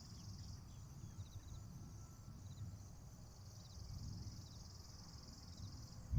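Insects trilling in a high, fast-pulsing buzz that stops about half a second in and starts again about three seconds in, over a low rumble.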